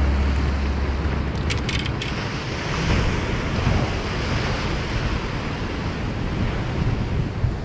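Sea surf breaking and washing on a rocky shore, with wind buffeting the microphone; a few short clicks about a second and a half in.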